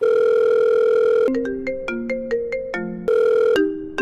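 Mobile phone ringtone: a long steady electronic beep, then a quick run of short electronic notes, with the beep returning about three seconds in and the notes starting again.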